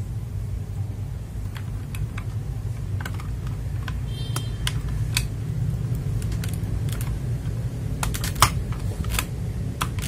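Keys on an FL Esports MK870 mechanical keyboard being pressed, giving scattered sharp clacks with a quicker cluster near the end, over a low steady hum.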